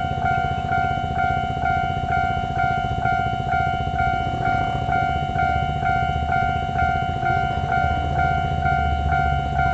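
Taiwan Railway level-crossing warning bell: an electronic ding on one steady pitch, repeating about twice a second. Beneath it a low rumble grows louder near the end.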